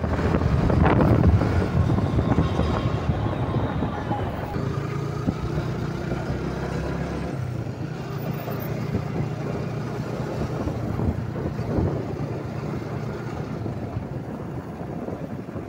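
Motorcycle running at road speed, its engine a steady low hum under wind rushing over the microphone.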